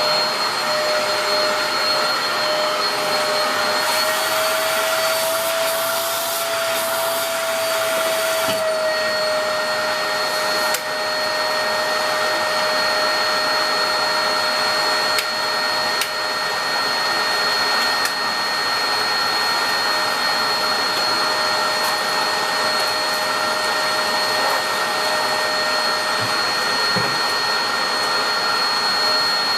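Dyson DC03 upright vacuum cleaner with a 700-watt motor, running steadily with a constant whine while vacuuming flour and debris from a carpet. About four seconds in, the motor pitch rises slightly and a hiss joins it for a few seconds, then both settle back. A few faint clicks follow.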